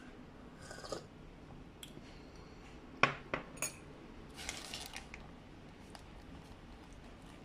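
A ceramic mug set down on a hard surface: one sharp clink followed by two lighter knocks. About a second later comes the crinkle of a paper burger wrapper being handled.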